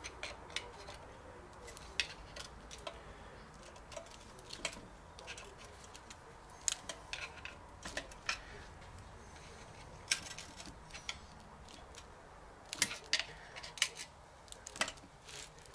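A screwdriver prying and scraping at the differential in a BE4 gearbox bellhousing, making irregular metal clicks and scrapes as the diff is worked loose. The sharpest clicks come in a cluster in the last few seconds.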